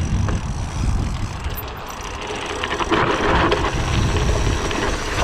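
Bicycle rolling fast downhill: wind buffeting the microphone over the rumble of the tyres, with a louder, rougher stretch of road noise about three seconds in.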